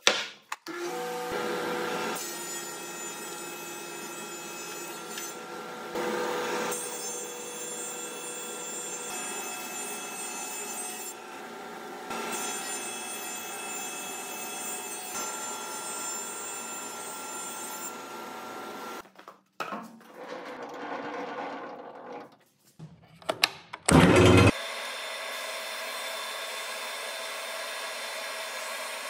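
A 20-inch planer running with a steady whine. It grows louder several times as boards feed through the cutterhead. After a few abrupt breaks and a brief loud burst about three quarters of the way in, a second wide feed-through machine runs with a steady hum.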